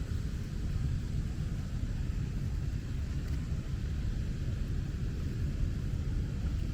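Steady rain hiss over a constant low rumble, with no distinct single events.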